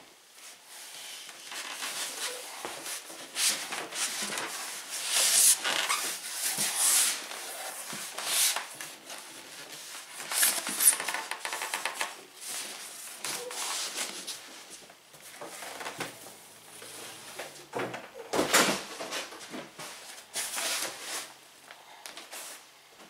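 Black foam carrying case of a Yuneec Typhoon H drone being pulled up out of its cardboard shipping box: foam and cardboard scraping and rubbing against each other in irregular rustles, with a few sharper knocks.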